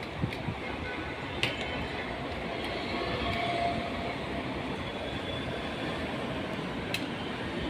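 Hot air rework station blowing steadily while the charge IC is reflowed back onto the board, with a few light clicks.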